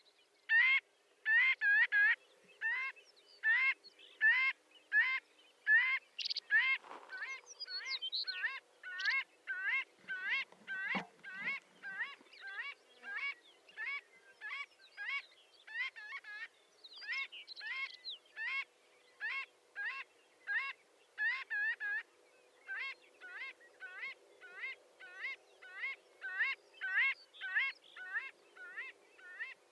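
Marbled godwits calling: a long, steady run of short, quick-repeated calls, about two a second, with several birds calling over one another for a moment about a quarter of the way in and again past halfway.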